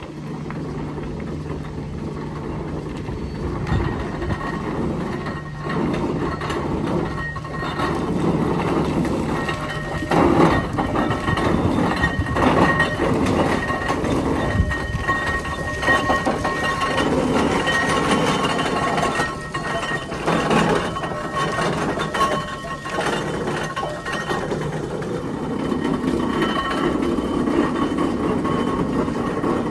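Foden steam traction engine working as it drives slowly past, a continuous mechanical clatter with scattered louder knocks. A low steady hum underneath stops about a third of the way in.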